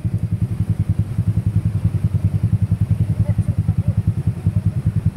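Small motorcycle engine idling close by: a steady, even putter of about eight beats a second that neither rises nor falls.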